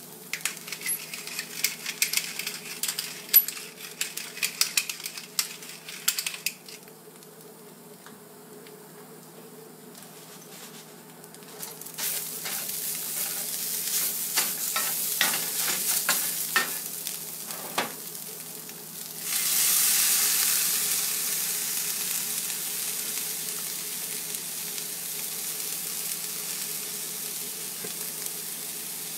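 Canned tuna frying in a cast iron skillet: a steady sizzle, with a utensil scraping and clicking against the pan as the tuna is stirred, busiest in the first few seconds and again around the middle. About two-thirds of the way through the sizzle suddenly gets louder, then holds steady.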